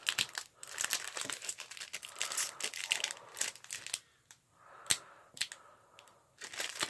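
Foil wrapper of a Pokémon TCG booster pack crinkling and tearing as it is ripped open and the cards are worked out of it, with a few sharp crackles in the second half.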